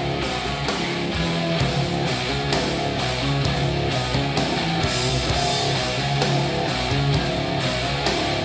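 Rock music with electric guitar and a steady drum beat, played back through a small active studio monitor and picked up by a recorder in the room.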